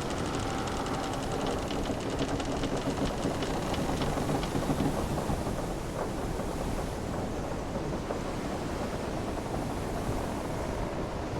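Wooden sailing ship at sea: hull timbers creaking over a steady wash of ocean waves and water noise, with the creaks more marked in the first half.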